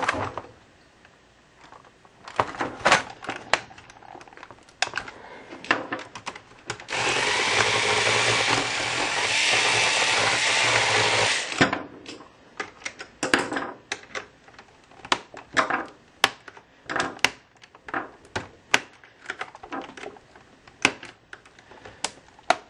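A small handheld power tool's motor runs steadily for about four and a half seconds in the middle. Before and after it come many sharp clicks and taps of a tool and hands on the laptop's plastic case and on screws that will not come out.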